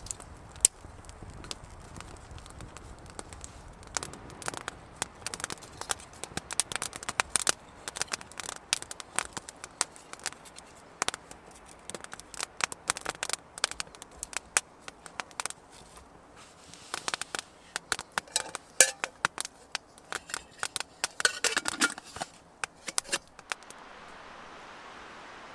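Small wood campfire crackling and popping, with irregular sharp snaps that come thick and fast after the first few seconds. Near the end the crackling stops and a steady hiss takes over.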